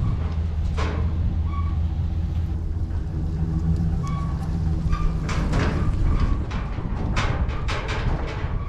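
Heavy-duty pickup truck engine idling steadily with a low hum. From about five seconds in, footsteps on dirt join it.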